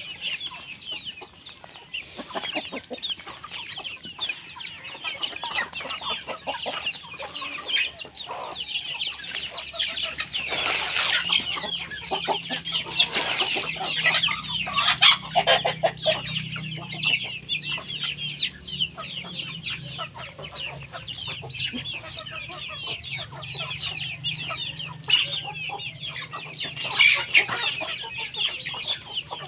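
A flock of native chickens clucking and calling, with a constant high chatter of many small calls and louder single calls scattered through. A low steady hum joins in about eleven seconds in.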